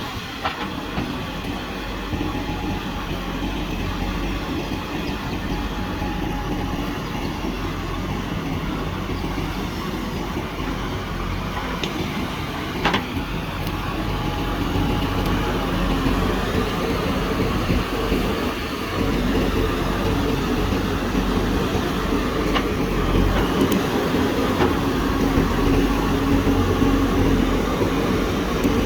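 Backhoe loader's diesel engine running steadily, with rattling and a sharp knock about thirteen seconds in; it grows somewhat louder in the second half.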